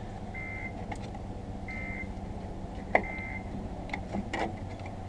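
Screwdriver prying a drum-brake wheel cylinder loose from the backing plate: a sharp metal click about three seconds in, then a few lighter clicks. Under it runs a steady low hum, and a high beep sounds three times, a little over a second apart.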